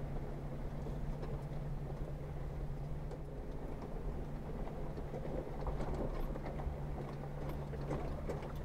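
Jeep Wrangler Rubicon's engine running steadily at low crawling speed on a rocky trail, with scattered clicks, knocks and creaks from the tyres and body over the rocks, busier in the second half.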